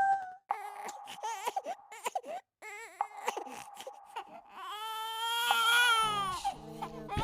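Crying sound effect: a run of short, wavering sobs and whimpers, then one long wailing cry that falls away at the end. A low pulsing tone starts under it near the end.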